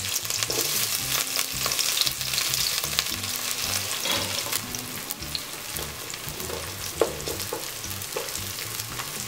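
Sliced onions sizzling in hot ghee in an aluminium pot. A few sharp scrapes of a wooden spatula stirring them come near the end.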